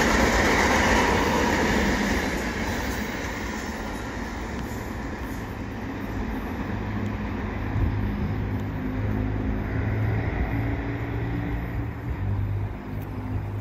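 Freight train cars rolling past on steel rails, the wheel-on-rail noise loud at first and fading over the first few seconds as the end of the train draws away. A quieter low rumble lingers afterwards.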